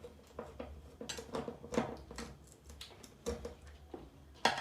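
Small hard clicks and rattles of wires and switch fittings being handled and pulled out, several a second, with a louder knock near the end.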